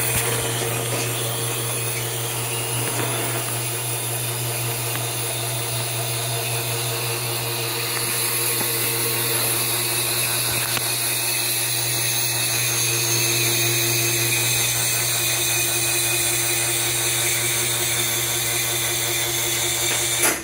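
Lavazza LB 4710 espresso machine running its pump and dispensing water through a group head on a test run after a full service: a steady hum with hiss, cutting off suddenly at the end.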